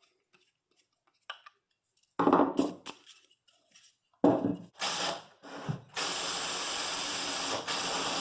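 Power drill boring half-inch holes in wooden vise jaw pads: a few short loud bursts, then a steady run of about two seconds near the end.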